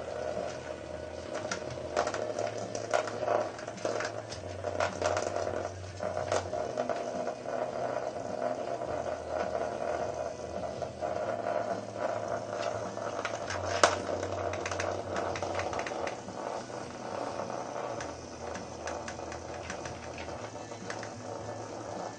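Vibrating bug toys, cheap Hexbug Nano knock-offs, buzzing and skittering across the bottom of a plastic laundry basket: a steady motor buzz with a rattling patter of their legs on the plastic. Scattered sharp clicks and knocks come as they bump the basket; the loudest is about 14 seconds in.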